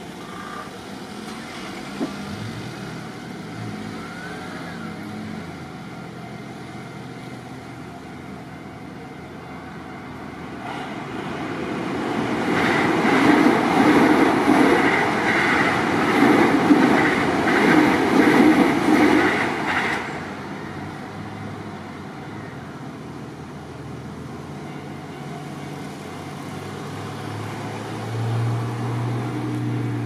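Keio Line commuter train passing over a level crossing. Its wheels clatter rhythmically over the rail joints, loudest from about twelve to twenty seconds in, with steady car engine noise before and after.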